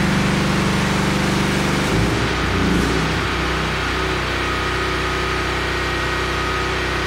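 Portable generator engine running steadily while powering the house, loaded by the newly started HVAC system. Its note shifts and wavers about two seconds in, then settles, and a faint high whine joins about four seconds in.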